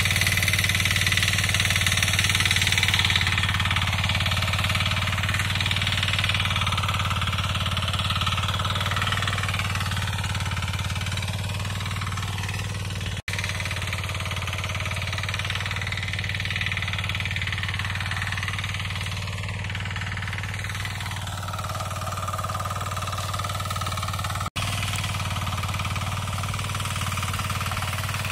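Kisan Kraft KK-IC 400D power weeder's 9 hp diesel engine running steadily with a low, even hum, breaking off for an instant twice.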